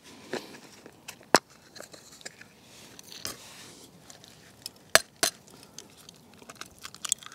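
Quiet handling of an egg, its plastic egg carrier and a metal mess tin, with three sharp clicks and taps: one about a second and a half in, and two close together about five seconds in, as the egg is cracked into the tin.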